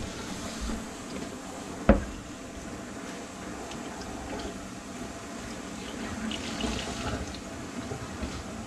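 Water running down a kitchen sink's drain pipes, a steady rush, with one sharp knock about two seconds in.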